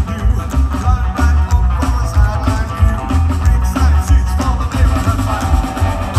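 Live rockabilly trio playing through a loud PA, heard from within the audience: electric archtop guitar, upright double bass and drums, with a strong pulsing bass line.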